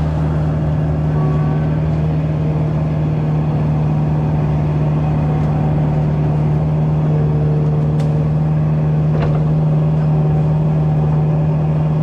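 Kubota mini excavator's diesel engine running steadily at a constant pitch, heard from the operator's seat, with a brief hydraulic whine in the middle as the boom and bucket move. Two light clicks come near the end.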